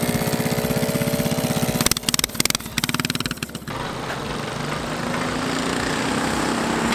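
Small engine running with a fast, even firing beat and a whine over it. About two seconds in the sound turns choppy and uneven for a couple of seconds, then settles into a steadier drone whose pitch slowly rises.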